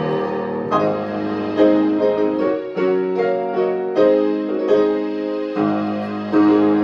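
Slow instrumental piano music, sustained chords with a new chord or note struck every second or so, without singing.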